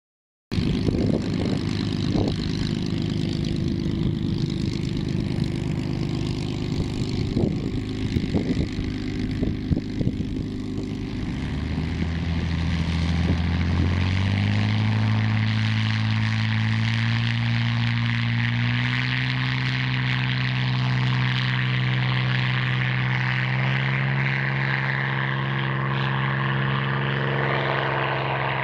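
Supermarine Spitfire T9's Rolls-Royce Merlin V12 piston engine and propeller running on the runway. Its pitch steps up twice, about twelve to fourteen seconds in and again near nineteen seconds, and then holds steady at high power through the takeoff run. A few brief thumps sound in the first ten seconds.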